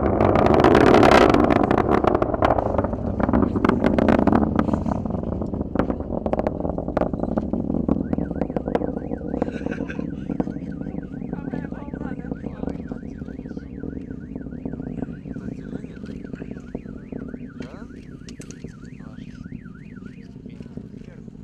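Ballistic missile's rocket motor in flight, a loud crackling roar that is loudest about a second in and fades steadily as the missile climbs away. A warbling siren-like tone sounds from about eight seconds in to about twenty.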